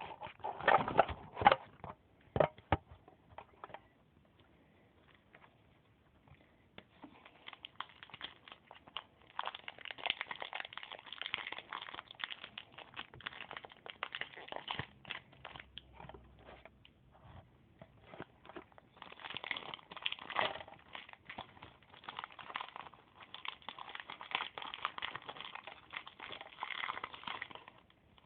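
Foil booster-pack wrapper crinkling and rustling as it is opened, in long stretches with short pauses. A few sharp clicks come in the first two seconds.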